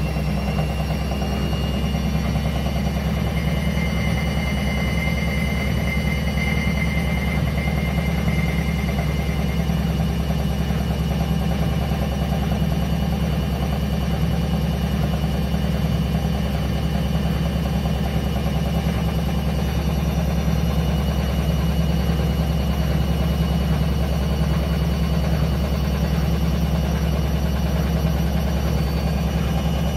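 Indesit WSB5085 washing machine drum spinning at a steady speed: a constant low hum with a thin high whine that stops about ten seconds in.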